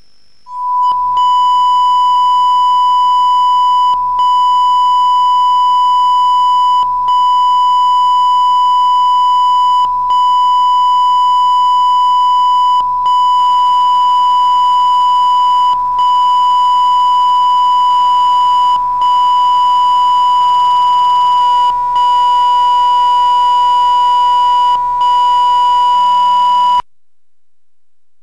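Loud steady 1 kHz test tone from the M1 analogue TV colour-bar test card. It fades in about a second in and breaks off briefly about every three seconds. In the last part, further steady tones at other pitches sound along with it. It cuts off abruptly just before the end as the signal goes off.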